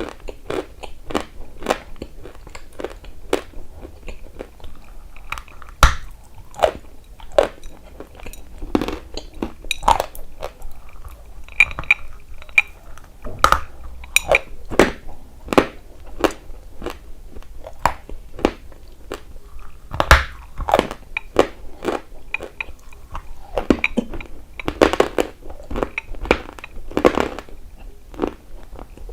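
Close-miked biting and chewing of a dry, crunchy chalk-like mineral: irregular sharp crunches several times a second, with a few much louder bites scattered through.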